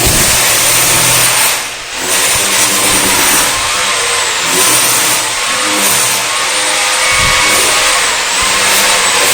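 Electric power tool running with a loud, harsh motor and cutting noise that eases off briefly about two seconds in; its motor pitch sags and recovers twice, as when the tool is pressed into the work.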